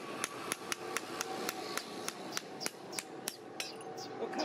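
Small farrier's hammer driving nails through a steel shoe into a bull's hoof: quick, regular sharp taps, about three to four a second.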